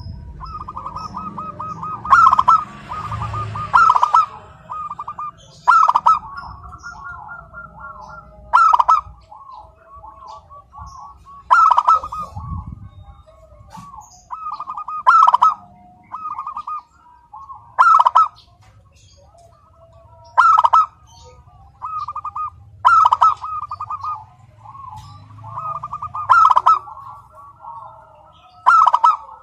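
Zebra dove (perkutut) cooing without pause: a rolling run of quick coos, broken by a loud, sharp accented note about every two to three seconds.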